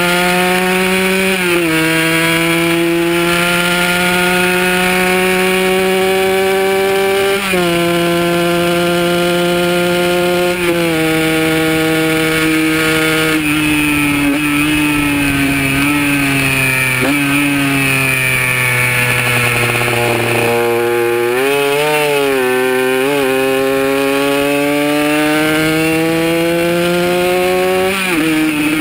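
Kawasaki KR150's single-cylinder two-stroke engine at high revs on a track lap. Its pitch climbs steadily and drops sharply at each upshift. About two-thirds through, the revs fall and wobble through a few quick blips as it downshifts, then climb again.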